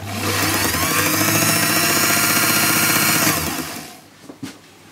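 Small belt-driven BTM watchmaker's lathe with its electric motor switched on, running up to speed with a rising whine, running steadily for about three seconds, then switched off and winding down with a falling pitch.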